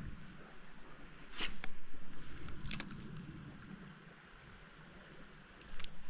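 Shimano Stratic 1000 spinning reel being cranked to retrieve a light jig: a soft, rapidly pulsing whir that swells for about a second, with a few sharp clicks.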